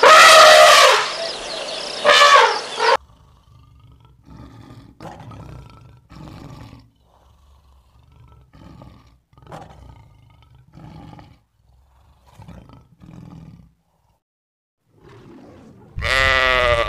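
Elephants trumpeting loudly for about three seconds, then a lion calling in a series of short, much quieter calls about one a second. Near the end comes a single loud sheep bleat.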